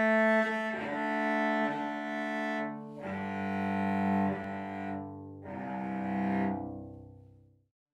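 Cello playing long bowed notes in three phrases with short breaks between them, the last phrase dying away just before the end.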